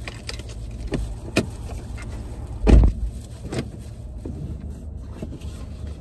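A few light knocks and one heavy, dull thump about three seconds in, over a steady low hum inside a car.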